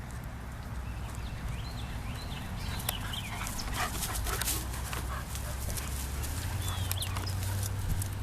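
A dog whimpering, a few short high whines scattered through, over many light clicks and rustles and a steady low rumble.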